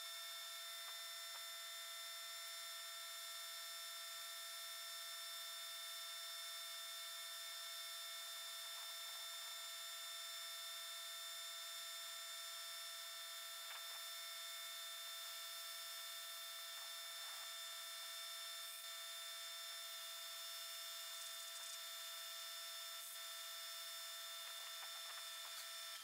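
A faint, steady hum made of several high, unchanging tones over a light hiss, with a few faint clicks.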